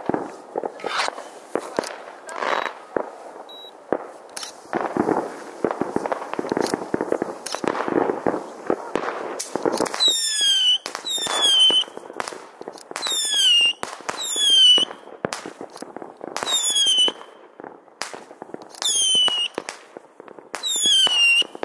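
Fireworks display: bangs and crackling bursts, then from about halfway a run of whistling fireworks, each whistle sweeping down in pitch, about one a second and sometimes in pairs, mixed with more bangs.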